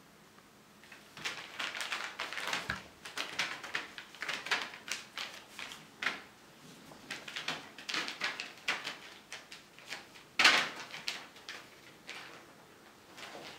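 Thin plastic sheeting crinkling and crackling under a cat's paws as it runs and pounces after a ball, in quick irregular crackles starting about a second in, with the loudest crackle about ten seconds in.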